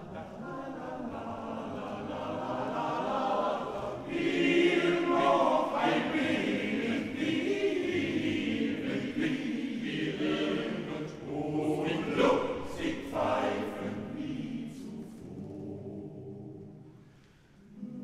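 Male choir singing a cappella, swelling louder about four seconds in, with a few quick rising vocal glides later on, then fading to a hush near the end.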